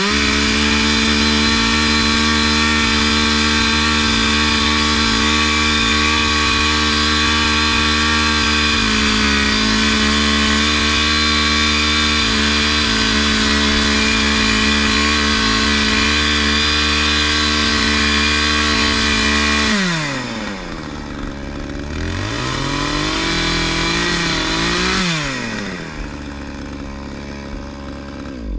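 Two-stroke chainsaw held at full throttle for about twenty seconds while stripping kernels off corn cobs. The throttle is then released, the saw is revved once more, and it drops back to idle near the end.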